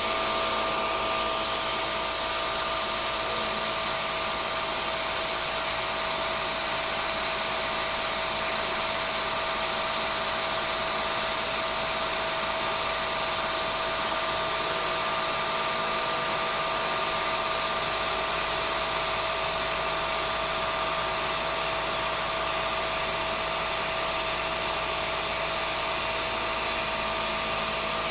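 CNC milling machine taking a slow, conservative cut in a steel sheet-metal clamp, with the mist coolant spraying: a steady air hiss under a steady spindle whine, unchanging throughout.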